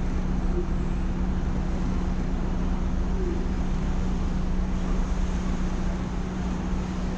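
The Fukumaru passenger ferry's engine running steadily with a low hum and rumble as the boat comes alongside the pier.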